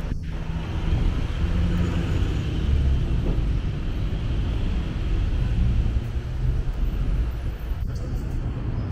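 Steady city street traffic noise from passing cars, a continuous low rumble with no distinct events.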